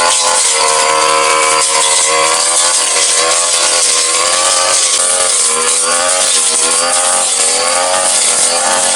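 Brush cutter engine running at high revs, spinning a metal blade through grass, its pitch dipping and recovering every second or so as the blade takes and sheds the load.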